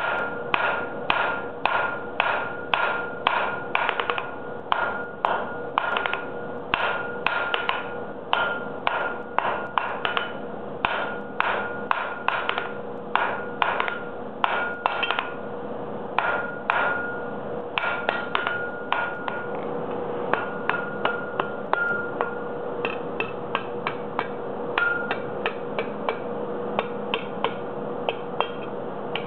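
Hand hammer striking a red-hot steel bar on an anvil, about two to three blows a second, each blow with a short metallic ring. Around twenty seconds in the blows pause, then resume lighter and quicker. A steady hum runs underneath.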